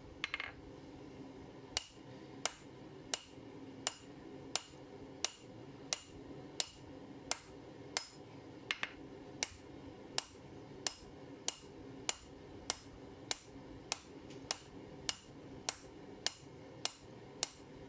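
Hand hammer striking red-hot 16 mm mild steel round bar laid across a hot cut hardie, in an even rhythm of about three blows every two seconds over a steady low hum. The bar is being cut through, worked in toward its centre, as a test of the hardened cutting edge.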